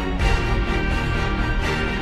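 Background music for a motivational slideshow, playing steadily.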